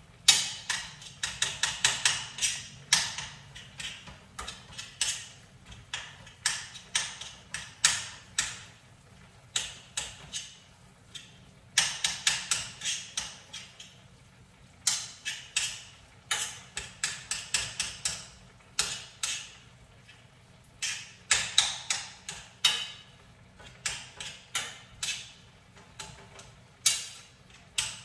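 A cooking utensil repeatedly knocking and scraping against a pan as ground meat is chopped up while it browns, in quick runs of sharp clicks with short pauses between them.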